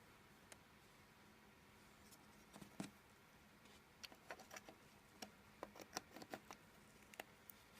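Faint, irregular small clicks and taps, a dozen or more, mostly in the second half, over a quiet steady hum.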